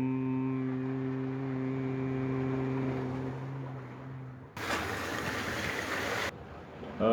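A man's voice chanting a long, steady low drone-like tone that fades out about four seconds in. A short burst of rushing noise follows, then a new chanted tone slides up and holds near the end.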